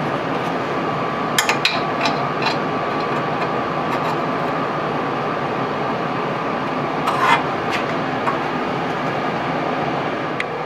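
Metal parts and hand tools clinking and knocking during surface grinder reassembly: a few sharp clinks in the first few seconds and another pair about seven seconds in, over a steady rushing hum with a faint high whine.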